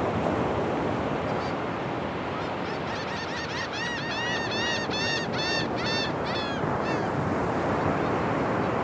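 A series of about a dozen short, arched bird calls, about three a second, starting a few seconds in and dying away near the end, over a steady rushing noise.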